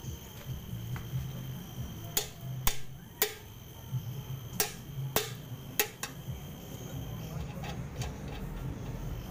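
Small hammer striking a steel oil pan at the freshly arc-welded drain-bolt nut: six sharp metallic knocks, each with a brief ring, about two to six seconds in. A faint steady high whine runs underneath and stops about seven seconds in.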